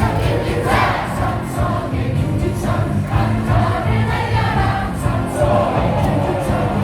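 Baseball crowd singing a batter's cheer song in unison along with music from the ballpark speakers.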